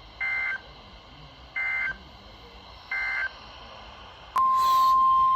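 Three short digital data bursts of a NOAA Weather Radio SAME code, about 1.4 s apart, closing the previous warning. Near the end a loud, steady 1050 Hz weather radio alert tone switches on with a click, announcing the next warning.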